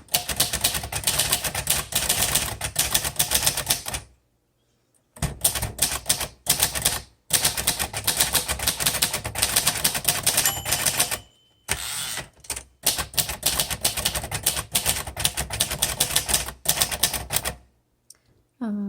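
1957 Royal Quiet De Luxe manual typewriter typed on fast, rapid keystrokes in several runs with short pauses between them. A brief ring about ten and a half seconds in, typical of the margin bell.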